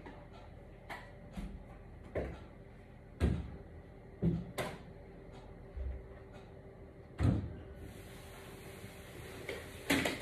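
A series of irregular knocks and thuds from someone moving about a room, roughly one a second, the loudest about three and seven seconds in, over a faint steady hum.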